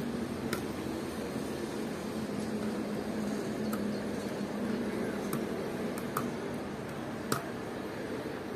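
A small screwdriver and wire clicking against the plastic screw terminals of a temperature controller during wiring: about six sharp, irregular clicks, the loudest near the end. A steady background hum runs underneath.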